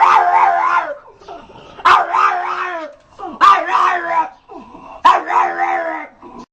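A dog making four drawn-out, wavering growling vocalizations in a row, each about a second long with a sharp start. It is asking to be let into the house.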